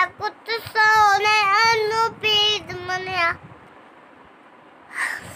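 A young boy singing a naat unaccompanied, in long held notes with a slight waver, breaking off about three seconds in.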